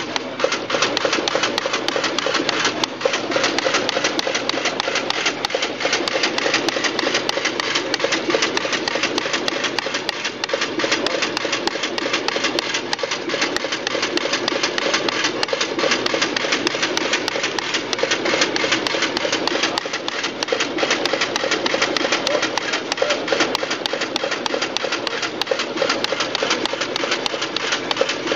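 Duplo business card cutting module running steadily: a fast, even clatter of its feed and cutting mechanism as cut cards drop onto the output stacks.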